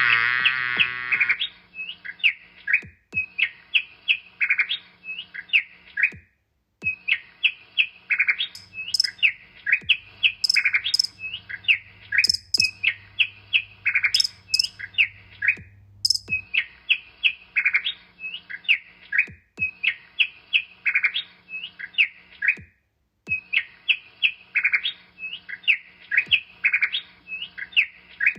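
Small songbird chirping over and over: quick, high, downward-sweeping chirps, a few a second, in phrases broken by short silent gaps. A louder pitched sound with many overtones plays for about the first second and a half, then stops.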